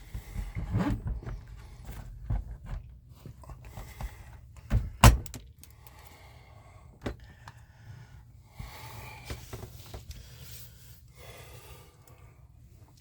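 Clicks, light knocks and a small metallic jingle of hardware being handled while a refrigerator door is fitted back onto its hinge pin, with one sharp knock about five seconds in, then softer rustling.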